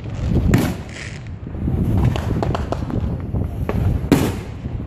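Wind buffeting the microphone while riding, with scattered sharp firecracker bangs going off around the street; the loudest bang comes about four seconds in.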